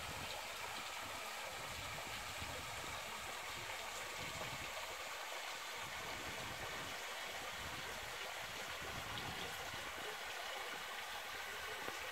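Steady rush of spring water trickling and flowing into a rock pool.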